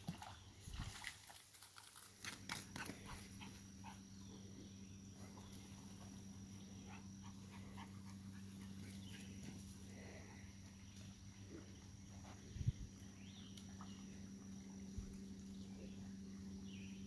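A dog digging and scrabbling in sand, with short scratchy clicks in the first few seconds, over a low steady hum; a single sharp knock about twelve and a half seconds in.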